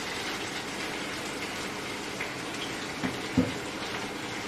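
Tempering of dried red chillies, crushed garlic and curry leaves sizzling steadily in hot oil in a pan, with a single knock about three and a half seconds in.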